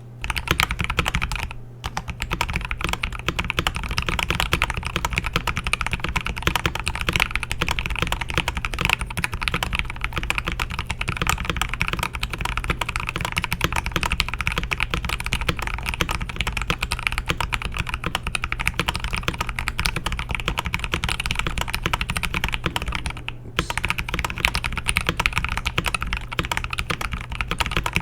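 Fast, continuous typing on a custom KBD67 Lite mechanical keyboard with lubed Zealios V2 67g tactile switches, a polycarbonate plate and PBT keycaps. There is a short pause about two seconds in and another near the end.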